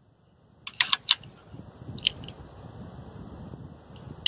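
Sharp clicks and clacks from the action of an HFT 500 pre-charged air rifle being worked to reload between shots: a quick cluster about a second in, one more at two seconds, and two near the end.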